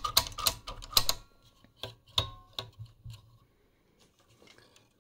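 Irregular metallic clicks and clacks from the opened Boonton Q-Meter Type 190A's chassis and mechanism being handled. They come thick at first, thin out and stop after about three and a half seconds.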